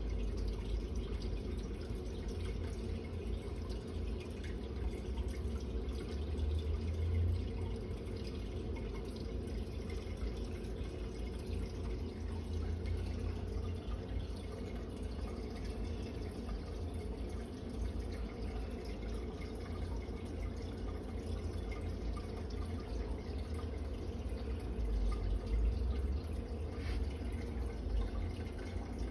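Steady trickling water from a running aquarium filter, with a low hum underneath.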